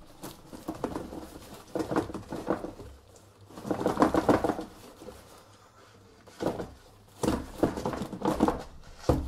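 A cardboard shipping box wrapped in packing tape and plastic film being handled and turned over: rustling, crinkling and scraping in several short spells with quiet gaps between.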